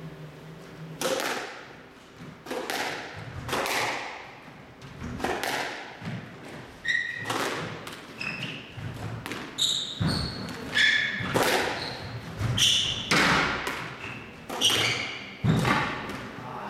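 Squash rally: the ball striking rackets and the court walls again and again, starting about a second in, each hit echoing around the court, with short shoe squeaks on the court floor among the later hits.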